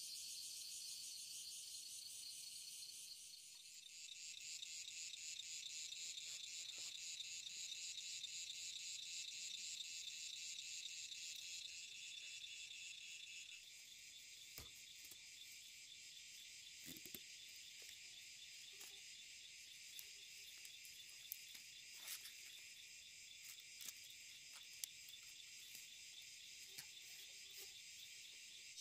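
Chorus of insects, crickets or similar, trilling steadily and high-pitched. The mix of trills shifts a few seconds in and again about halfway, and a few faint sharp clicks are heard in the second half.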